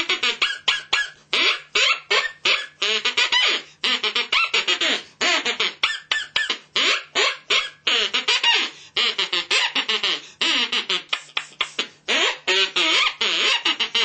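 Duck-style quacking jabber, a puppet duck's voice squawking in quick choppy bursts with brief pauses, as if telling a story in quacks.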